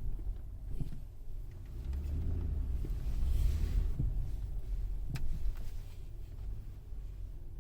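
Car driving, a steady low rumble, with a rise of hiss about three to four seconds in and a single sharp click about five seconds in.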